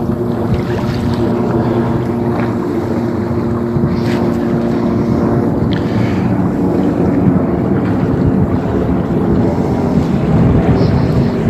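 Boat engine running steadily while under way, with wind buffeting the microphone; a steady engine hum fades about halfway through.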